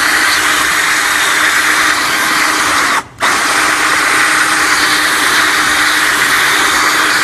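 Power drill running steadily, its bit grinding into a thick glass bottle inside a clay dam of water. The sound breaks off for a split second about three seconds in, then carries on.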